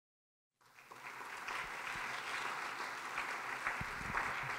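Audience applauding, fading in from silence about half a second in and then holding steady.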